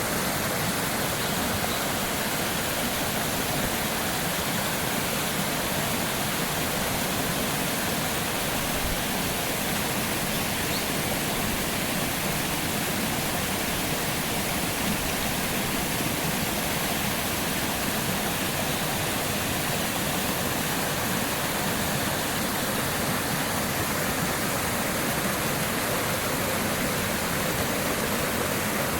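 Garden waterfall pouring in a powerful flow: a steady, even rush of falling water.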